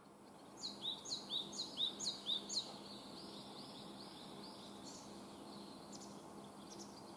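Japanese tit (eastern great tit) song: a quick two-note phrase, high then lower, repeated about five times, then fainter repeats of the phrase. A faint steady low hum and background hiss lie underneath.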